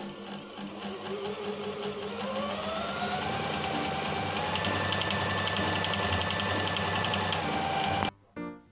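Brother LICIA sewing machine's motor running up to speed, its whine rising in pitch over the first few seconds, then running steadily with rapid even ticking from the needle mechanism before cutting off suddenly near the end.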